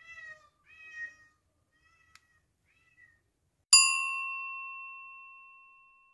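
A cat meowing four short times, the last two fainter, then a single bright bell ding about three and a half seconds in that rings on and fades away over about two seconds.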